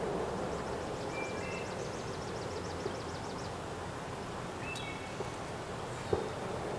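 Outdoor ambience at a pond: a steady background hiss with a bird chirping twice, once about a second in and again near the end. A rapid run of faint high ticks comes in about a second in, and there is a single soft knock near the end.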